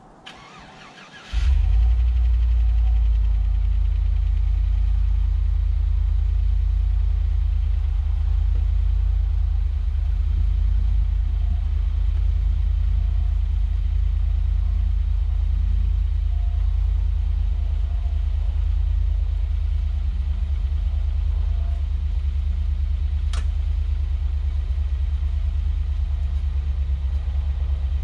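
Steady low rumble of a vehicle driving along, starting suddenly about a second in and holding an even level, with one brief click late on.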